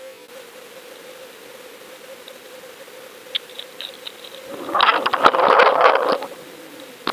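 Underwater recording of a king mackerel striking a live skipjack tuna bait on a rig. Over a steady faint hum, a few sharp clicks lead into a loud burst of crackling and rattling clatter lasting about a second and a half, with two more clicks near the end.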